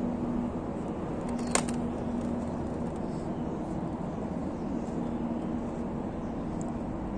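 Steady low background rumble with a faint humming tone that comes and goes, and a single sharp click about a second and a half in.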